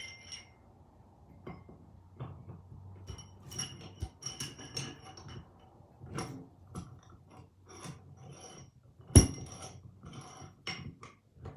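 Metal clinks, clicks and knocks from a small rebuilt Desmond Simplex bench vise being handled, irregular and ringing, with one sharp, loud knock about nine seconds in.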